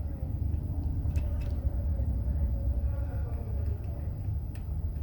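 A few light clicks of small tools and metal parts being handled while a battery contact plate is fitted, over a steady low background rumble.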